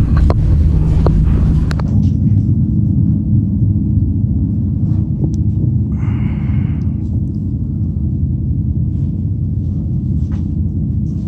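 A steady, loud low rumble with a few low tones held under it, and a brief higher hiss about six seconds in.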